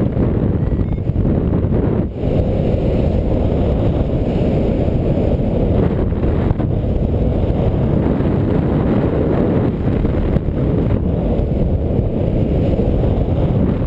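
Wind from the paraglider's airspeed buffeting the action camera's microphone: a loud, steady low rumble that hardly varies.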